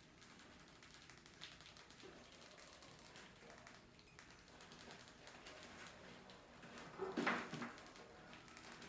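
Light clicks and scratches of a mouse's claws on the wooden ramp and wire fan-guard lid of a bucket trap, with a louder flurry of quick scrabbling knocks about seven seconds in.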